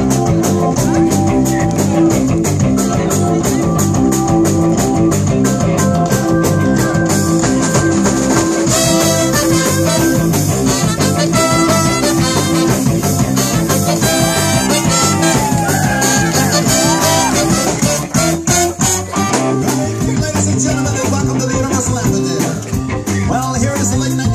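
Live rhythm-and-blues band playing an upbeat number, with a horn section of trumpets and saxophone over drums and a steady beat.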